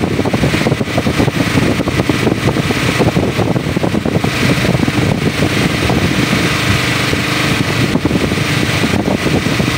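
An engine on the fishing boat running steadily, making a constant mechanical drone.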